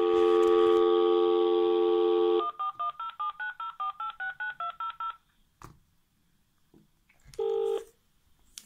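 Panasonic landline telephone through its loudspeaker: a steady dial tone, then a quick run of about twenty touch-tone keypad beeps as a number is dialled. After a pause, one short burst of ringing tone near the end shows the call going through.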